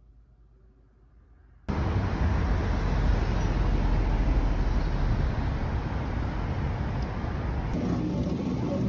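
Faint room tone, then an abrupt cut to loud city street noise with road traffic. About eight seconds in, it changes to a quieter indoor supermarket background.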